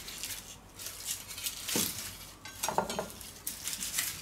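Crinkling and crackling of a plastic mesh onion net as it is cut open with a kitchen knife and pulled apart by hand, with a few light knocks and clinks of the knife on a wooden cutting board.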